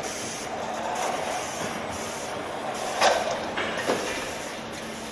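Car assembly-line factory noise: a steady din of machinery with a low hum, broken by a sudden loud burst about three seconds in and a smaller one just before four seconds.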